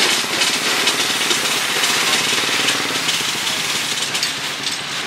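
Small motorbike engine running close by, a fast, even rattle.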